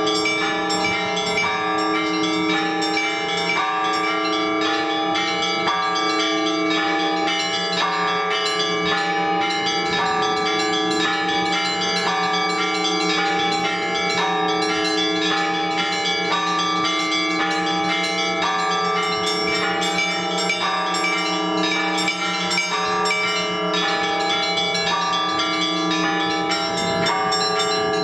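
Russian Orthodox church bells rung together by a bell-ringer: rapid strokes of the small bells over the long, steady hum of the larger bells. This is the peal that calls people to the all-night vigil.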